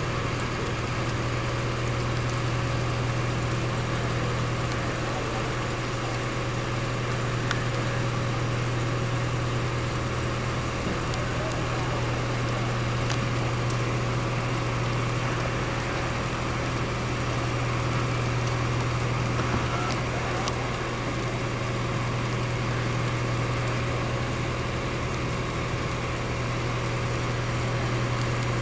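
Fire engines running steadily, a constant low engine drone with a fainter steady hum above it, the trucks' motors running their pumps to feed the laid-out hose lines.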